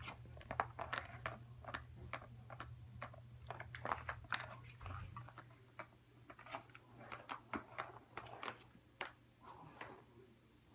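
Irregular light plastic clicks and taps from a cat circuit track toy as kittens paw at it and its ball, several a second at times, with a low hum under the first half.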